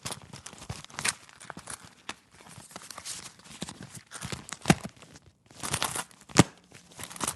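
Hands rummaging through a leather wallet: continuous rustle of leather and paper money with sharp clicks and knocks of coins and cards being shifted. Two louder knocks stand out, a little after the middle and again near the end.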